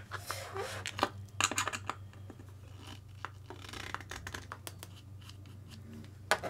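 Small plastic parts of an RC car being handled: a scatter of light clicks, taps and scrapes, busiest in the first two seconds, over a low steady hum.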